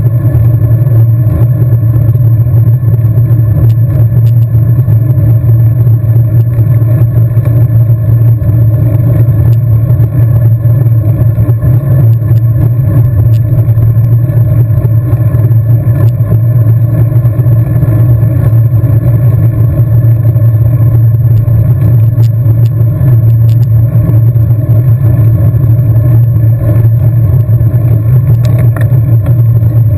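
Steady, loud wind and road rumble from a road bike riding at speed, with a few faint clicks and rattles.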